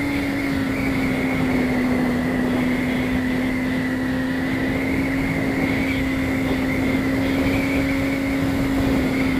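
Honda CBR600RR inline-four engine running at a steady cruise, with wind rushing past and a steady whistle at the rider's helmet.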